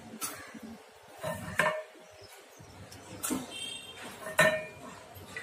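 Metal pressure cooker and kitchen utensils being handled: about five sharp clinks and knocks, each with a brief metallic ring, at uneven intervals.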